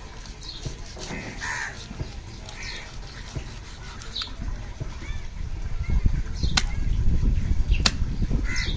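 Crows cawing now and then around a fish-cutting stall. Near the end, a long curved blade knocks sharply twice on the wooden chopping block while slicing through a seer fish head.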